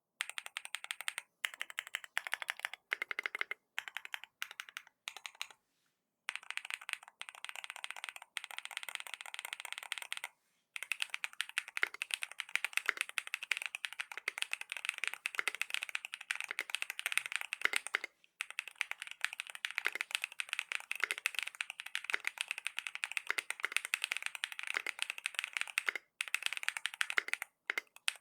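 Fast, continuous typing on an Akko YU01 White Jade mechanical keyboard with Akko Piano Pro V3 switches and ASA-profile polycarbonate keycaps, a dense stream of keystroke clacks. It breaks off briefly a few times, about six, ten and eighteen seconds in.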